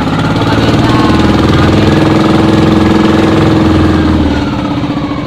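Outrigger fishing boat's engine running under way with a rapid pulsing beat. It holds steady, then eases off and drops in pitch about four seconds in.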